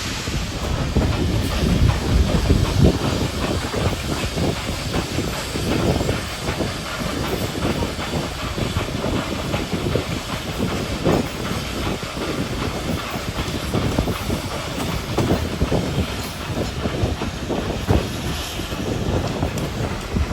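Steam excursion train on the move: steam hissing over a steady rumble, with irregular low knocks from the running gear and wheels on the rails.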